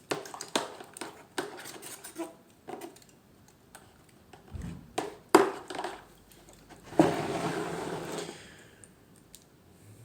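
Clicks and knocks of a Swiss Army knife's metal tools being handled and washed at a sink, with a sharp clack about five seconds in. A short rush of water starts suddenly about seven seconds in and fades away over a second or so.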